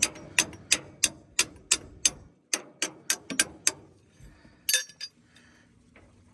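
Ratchet wrench clicking in a quick, even rhythm, about three clicks a second, as the pitman arm clamp bolt is backed out. The clicking stops about four seconds in, and a single metallic clink follows about a second later.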